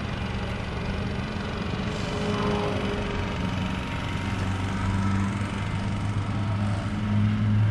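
An engine running steadily with a low, even hum, getting louder toward the end.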